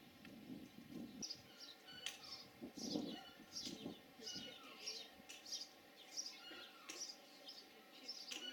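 Bird chirping over and over, short falling chirps about two a second, starting about a second in.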